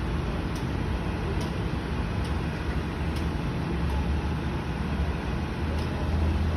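Diesel engine of a pile-driving rig running steadily as a low drone, with faint light ticks about once a second.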